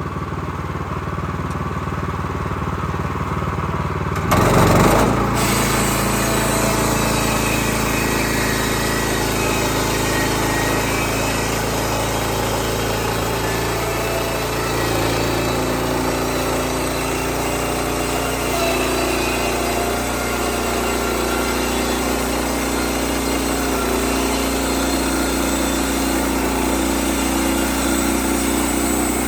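Portable bandsaw sawmill's small gas engine running steadily, jumping up in level about four seconds in, then running on louder and steady as the mill works.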